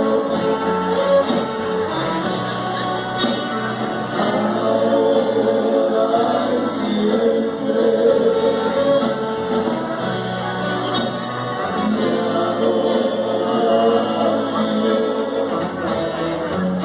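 A band playing a song live, with sung vocals over the instruments.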